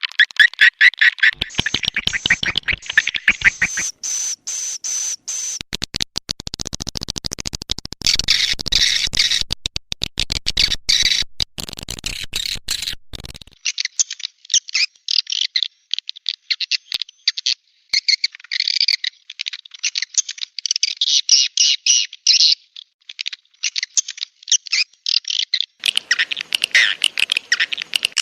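Swiftlet lure call: rapid, unbroken chittering and twittering of swiftlets, the kind of track played to draw them into a nest house. The calls come in sections that change abruptly several times.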